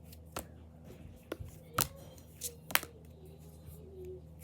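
Trading cards from a freshly opened booster pack being handled and moved through the stack, with several sharp card snaps and flicks spread irregularly.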